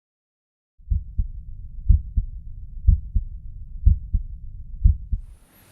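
Heart sounds heard through a stethoscope: five paired beats (lub-dub), about one a second, with a continuous low murmur filling the gaps between them. They start about a second in and stop just before the end.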